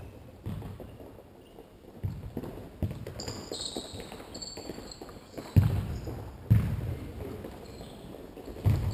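Futsal ball being kicked and bouncing on the indoor court: a string of dull thuds that ring on in the hall, the loudest two a little past halfway. Sports shoes squeak on the court floor in the middle.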